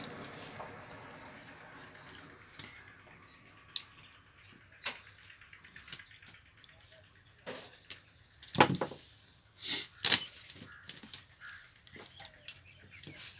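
Scattered short knocks and clicks of parts and wires being handled on a wooden workbench, the loudest two about 8.5 and 10 seconds in.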